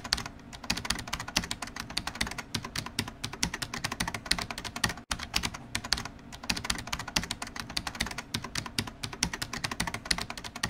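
Computer keyboard typing: rapid, continuous key clicks with a brief break about five seconds in.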